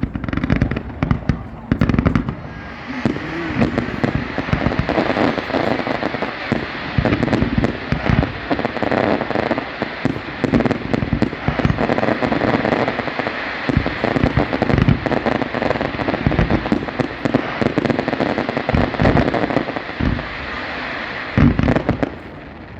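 Aerial fireworks display: many shells bursting in quick succession, with low booms throughout. A dense crackling hiss sets in about two seconds in and carries on until near the end, where a few last booms sound.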